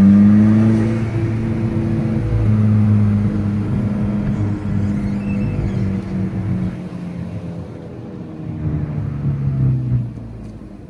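Turbocharged four-cylinder engine of a Mk5 VW GTI with an upgraded K04 turbo and new Audi R8 coil packs and NGK spark plugs, heard from inside the cabin. It pulls hard at the start, holds a steady note while cruising in gear, then eases off and grows quieter over the last few seconds.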